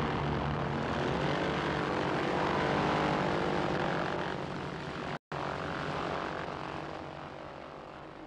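Propeller aircraft engine running steadily, a droning noise. It cuts out for an instant about five seconds in, then fades gradually toward the end.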